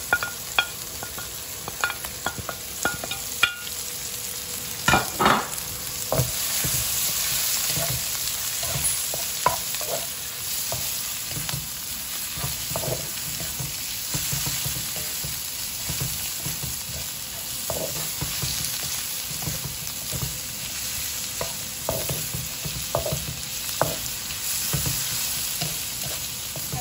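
Courgette and carrot ribbons and peas sizzling in oil in a wok over a high flame, a wooden spatula stirring and tossing them with knocks and scrapes against the pan, busiest in the first few seconds. The heat is high enough that the water from the vegetables steams straight off and they fry in the oil instead of stewing.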